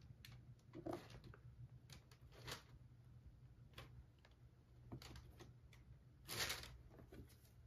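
Near silence: faint handling noise as a leather sneaker is turned over in the hands, with a few soft clicks and a short rustle about six seconds in.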